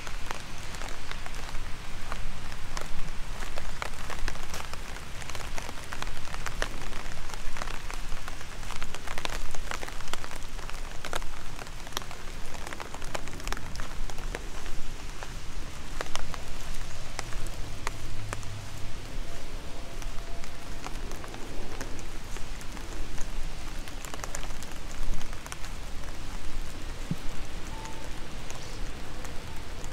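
Steady rain falling: a constant soft hiss dotted with many sharp ticks of individual drops landing close by.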